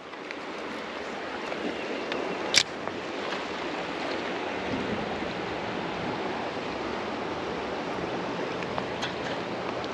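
Steady rushing of a shallow river's current, with one sharp click about two and a half seconds in.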